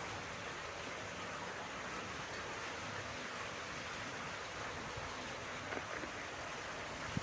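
Steady, even outdoor rushing hiss, with a couple of faint clicks near the end.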